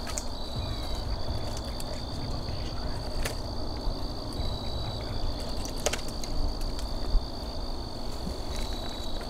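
Insects chirring steadily in one high, even tone, with a few faint clicks about three and six seconds in, over a low rumble.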